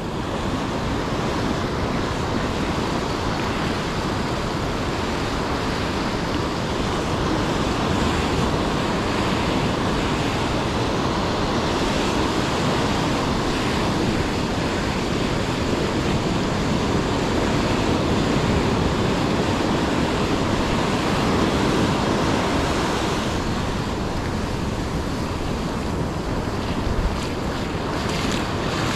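Ocean surf breaking and washing up the beach: a steady rushing noise, with wind blowing on the microphone.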